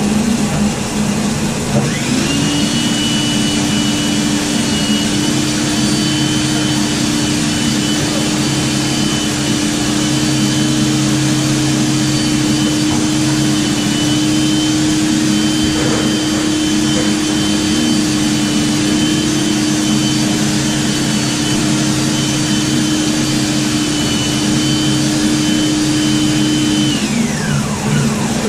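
Drill-driven RIDGID K9-306 flexshaft drain machine spinning its cable in a grease-clogged 3-inch drain line. The motor whine spins up about two seconds in, runs steadily, then winds down near the end, over a steady background hum.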